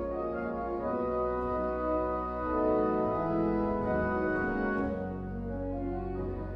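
Organ music: slow, sustained chords over a held low bass, part of a medley of popular tunes.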